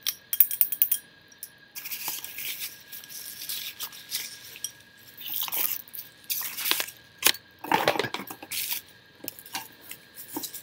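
Plastic and paper packaging rustling and crinkling in bursts as items are unwrapped and handled, with small sharp clicks and knocks in between. A faint steady high tone sits underneath.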